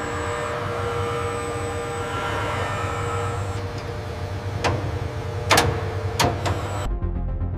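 Steady hum of industrial machinery with a thin high whine, broken by four sharp clicks or clanks in the second half. Music cuts in just before the end.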